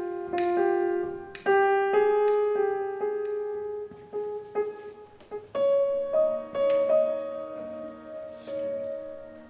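Solo piano music: single notes and chords struck one after another at uneven intervals, each left to ring and fade, moving to a lower, softer passage about halfway through.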